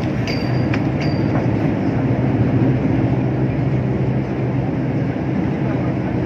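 Steady road noise inside a moving car's cabin, a tyre and engine drone at highway speed. A few short, high clicks come in the first second or so.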